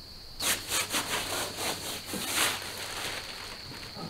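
Polycarbonate gazebo roof panel being handled, the plastic sheet rubbing and flexing in a run of short scraping strokes over the first two and a half seconds. A steady high insect drone runs behind it.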